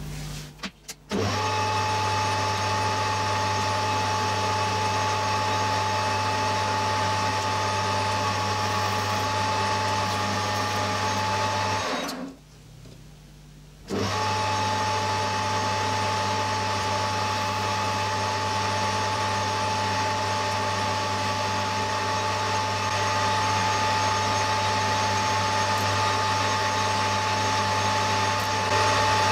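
Metal lathe running at speed: a steady motor and drive hum with a constant high whine. It starts abruptly a little over a second in, breaks off for about two seconds a little before halfway, then runs steadily again.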